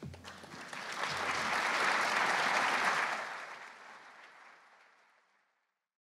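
Audience applauding, swelling over the first two seconds and then dying away to nothing about five seconds in.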